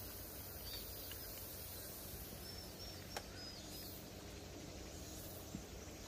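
Outdoor countryside ambience: a steady low rumble with a few faint, high, short bird chirps, and a single sharp click about three seconds in.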